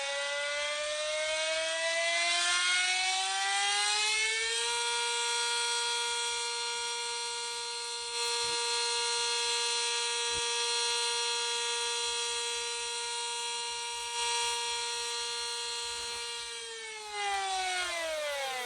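Warning siren played in reverse: its pitch climbs slowly for about five seconds, holds a steady wail, then falls off quickly near the end.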